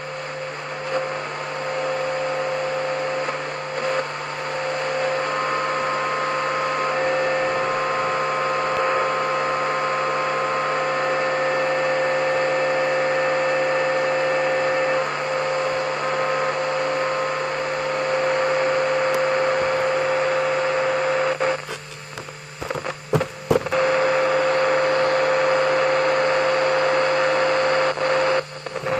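Radio static hiss between stations while tuning, with a steady hum tone and faint whistling tones drifting in and out. The hiss drops out in a few brief choppy gaps about three quarters of the way through and once more just before the end.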